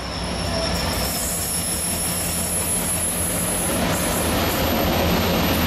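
Diesel locomotive drawing slowly into a station platform, its engine running steadily and growing gradually louder as it nears. A thin high squeal of wheels on rail sounds above the engine.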